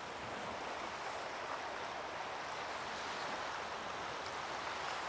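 Steady, even wash of ocean surf, with no single wave breaks standing out.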